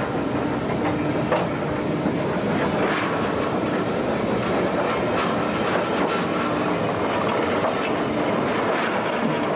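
An Opicina tramway car rolling along the rails of the cable-hauled incline, heard from beneath the car: a steady rolling rumble with irregular metallic clicks and a low hum that comes and goes.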